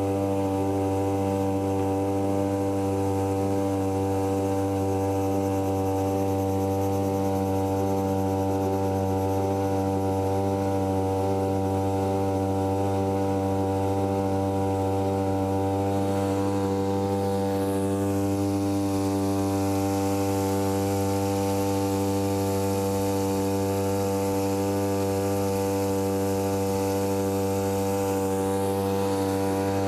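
Small 3 hp outboard motor running at a steady throttle, pushing the boat along: an even, unchanging buzzing drone.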